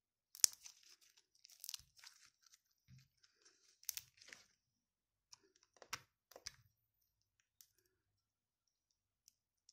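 Pink slime squeezed and stretched between fingers, making a string of sharp pops and sticky crackles as it is pressed and pulled apart. The loudest pop comes about half a second in and others follow near two, four and six seconds; after about seven seconds only a few faint ticks remain.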